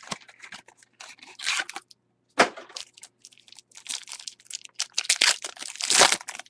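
Foil wrapper of a baseball card pack being torn open and crinkled, in several irregular crackling bursts, the loudest just before the end.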